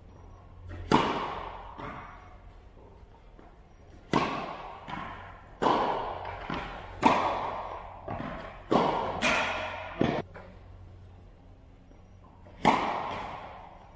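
Tennis ball struck by rackets, each sharp hit ringing out in the echo of a large metal-roofed indoor hall. A serve comes about a second in and a rally of hits runs from about four to ten seconds, with lighter ball bounces between them. Another serve comes near the end.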